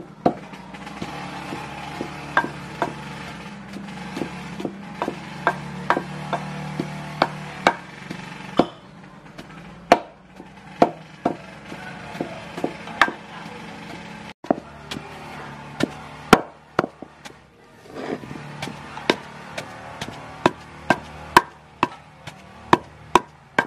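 Wooden pestle pounding in a stone mortar, knocking at an uneven pace of about one to two strokes a second with a few short breaks. It is grinding toasted grated coconut into koya.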